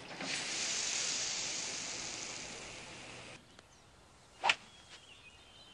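A long airy whoosh of a golf ball sailing away, fading over about three seconds and then cut off abruptly. About a second later comes one short sharp crack.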